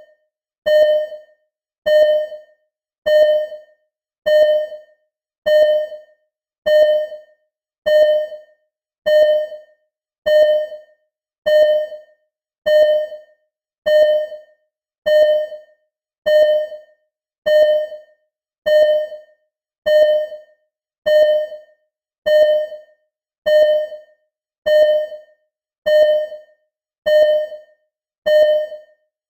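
Simulated ECG heart monitor beeping in a steady, even rhythm, about one beep a second. Each beep is a short single tone that fades quickly.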